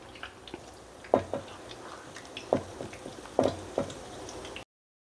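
Batter-coated cauliflower florets frying in shallow oil: a low sizzle with about five sharp pops and spits of oil as more florets are laid into the pan. The sound cuts off abruptly shortly before the end.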